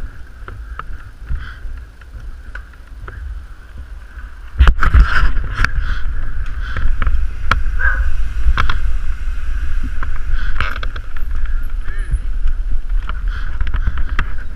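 Mountain bike rattling over stone paving, picked up by a camera mounted on the handlebars, with wind rumble on the microphone. From about four and a half seconds in, the clatter of knocks and clicks gets much louder and keeps going.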